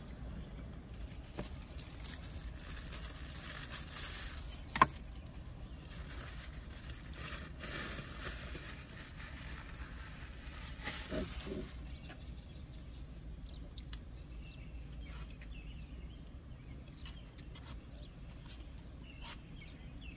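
Close-up eating sounds: chewing and mouth sounds with small scattered clicks, and one sharp click about five seconds in, the loudest sound. A faint hiss runs under the first half and stops about twelve seconds in.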